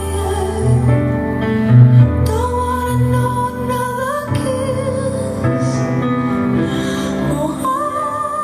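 A slow song with a singing voice holding long notes over deep bass notes, the bass heaviest in the first half.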